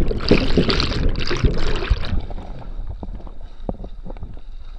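Whitewater churning and bubbling around a kayak's camera as it goes underwater in a capsize. About two seconds in the churning dies down to a quieter rush with scattered knocks.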